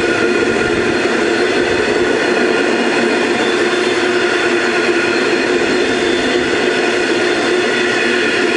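Iron ore train's steel ore wagons rolling past: a steady, loud noise of wheels on rail, with several steady ringing tones held over it.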